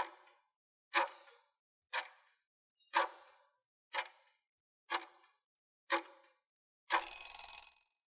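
Countdown-timer sound effect: a clock-like tick once a second, with a short ringing tail on each, seven times. Then a longer sound of just under a second near the end, as the countdown runs out.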